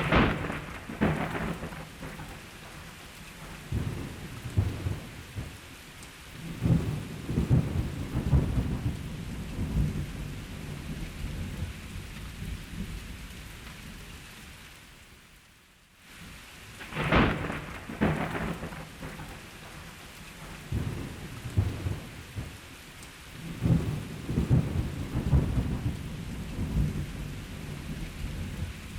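Thunderstorm: steady heavy rain with repeated rolls of thunder, several of them starting with a sharp crack. The sound fades out about halfway through, then begins again with a fresh crack and more rumbling over the rain.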